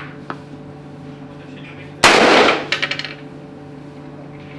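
A single gunshot about two seconds in, with a ringing tail, followed by a quick run of light metallic ticks as the spent case lands and bounces.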